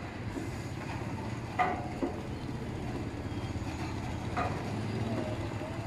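Steady low hum of an engine running throughout, with two brief higher sounds about one and a half and four and a half seconds in.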